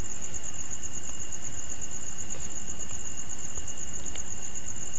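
Insects chirping in a continuous, evenly pulsing high trill, with a fainter steady high tone under it and a constant background hiss.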